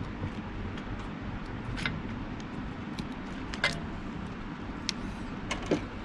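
Small sharp clicks and taps of a wire stripper and crimped wire terminals being handled at a compressor's start capacitor, several scattered clicks with the loudest about halfway through and near the end, over a steady low hum.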